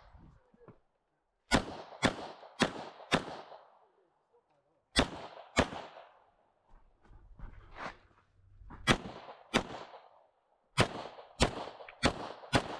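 Glock pistol firing about fourteen shots in quick strings of two to four, the shots about half a second apart, with pauses of a second or two between strings.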